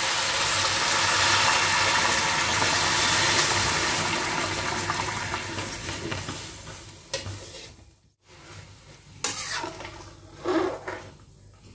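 Hot water poured from a pot into a hot kadai of fried rice, splashing and sizzling loudly at first, then fading out over about seven seconds as the pan fills.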